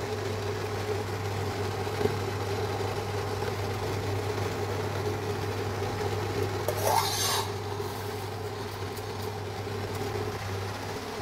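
Induction cooker running at 1000 W under a stainless steel pot of water: a steady hum with a hiss over it. About seven seconds in there is a short metallic scrape as the pot's steel lid is slid aside.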